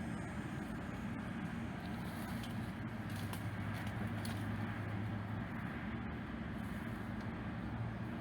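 Steady low rumble of road traffic, with a few faint crackles.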